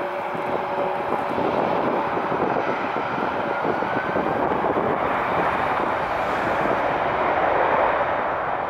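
Boeing 767-300ER airliner's twin turbofan jet engines at takeoff power during its takeoff roll: a loud, steady jet rush, with a faint rising whine about three seconds in, growing slightly louder near the end.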